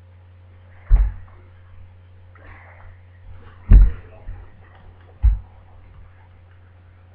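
Three short, loud low thumps: one about a second in, the loudest near the middle, and a third about five seconds in, over a steady low hum.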